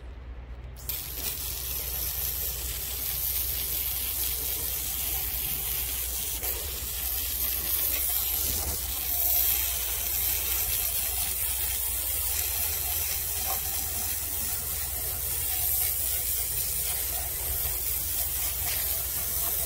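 Tru Cut sawmill blade cutting lengthwise through a silver maple log: a steady, loud hiss from the cut over the constant low hum of the mill's motor. It starts about a second in and runs on without a break.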